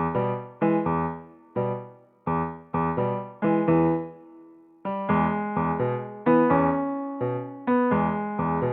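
Background music: a light electric-piano melody of separate struck notes, each fading quickly, in a steady bouncy rhythm.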